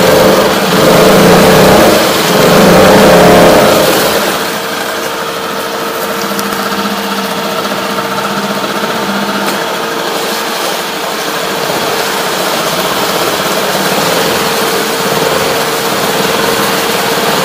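Hidea HDF6HS four-stroke 6 hp outboard motor running, revved up twice briefly in the first four seconds, then running steadily at a lower speed.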